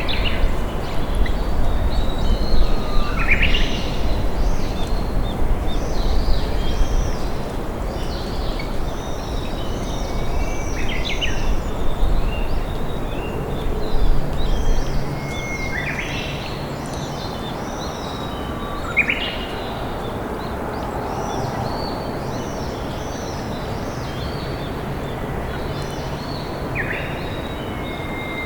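Steady rush of a flowing river with several wild birds singing over it: many quick high chirps, and every few seconds a call that sweeps up in pitch.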